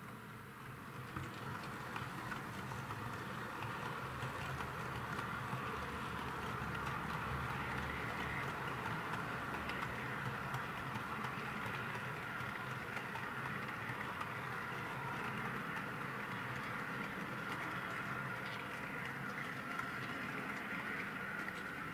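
HO-scale model freight train of tank wagons running along the track, a steady rolling noise of small metal wheels on rail that grows louder about a second in and then holds.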